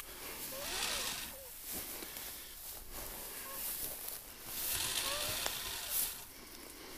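Footsteps swishing and rustling through thick, dry swale grass tussocks, in uneven surges as the grass brushes against legs and clothing.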